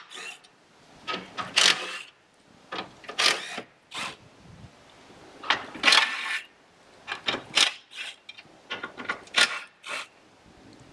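Hand ratchet clicking in short irregular bursts, one burst per back-swing, as the rear M8 bolts of a car's underbody brace are loosened overhead.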